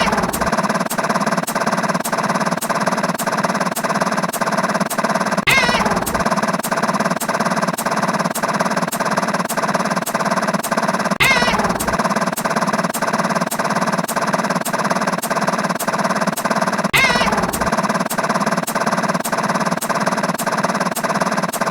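Looping electronic sound-effect track: a fast, even clatter of about two to three hits a second over a steady buzzy texture, with a falling whistle-like sweep and a low thump about every six seconds.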